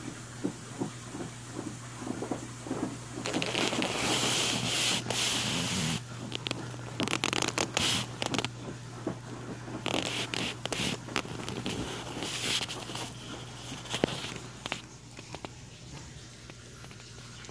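Rustling and scraping of cloth with scattered clicks, loudest in two long stretches starting about three seconds in and again about ten seconds in, over a steady low hum.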